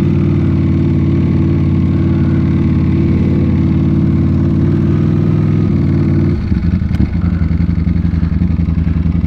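Ducati Panigale V4 motorcycle's V4 engine running steadily at low speed. Just over six seconds in its note drops to a lower, choppier beat, with a single sharp click about a second later.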